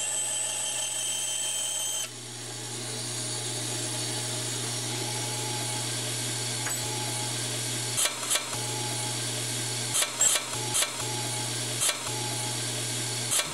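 Bandsaw running steadily with a low motor hum. In the second half, about seven short, sharp, loud clacks break in over it.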